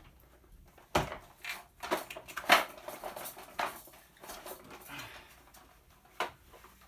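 Hard plastic toy parts clicking and clattering as a toy is pried apart and handled, with a handful of sharp knocks, the loudest about two and a half seconds in.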